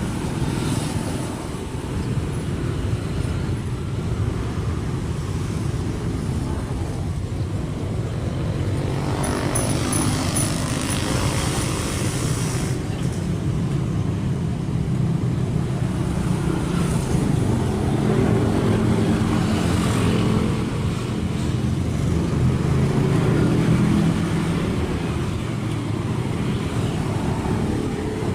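Kobelco SK75 excavator's diesel engine running continuously, working harder and louder for several seconds in the second half. A brief high-pitched squeal of metal comes about a third of the way in.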